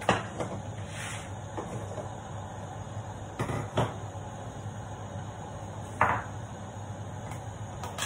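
Hot oil popping and spattering under the steel lid of a covered pan of frying fish: about half a dozen sharp pops, the loudest just after the start, near four seconds and at six seconds, over a steady low hum.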